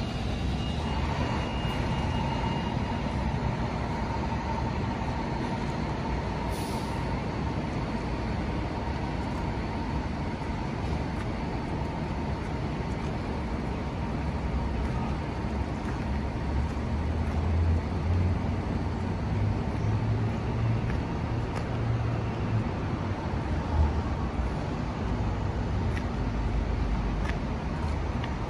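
City street background with a heavy vehicle's engine rumbling. The rumble grows in the second half, and a short hiss comes about six seconds in.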